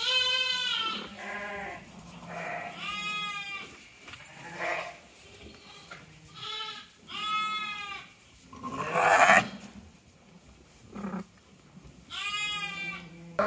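White Dorper lambs bleating repeatedly, high-pitched calls a few seconds apart with shorter fainter ones between them. A brief rustling noise about nine seconds in.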